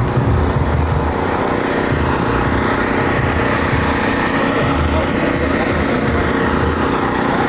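A steady motor drone with an uneven low rumble beneath it.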